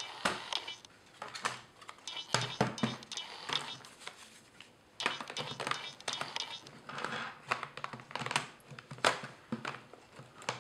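Irregular plastic clicks and knocks of a Sony VAIO laptop being handled: the lid shut and the battery pushed back into its bay on the underside.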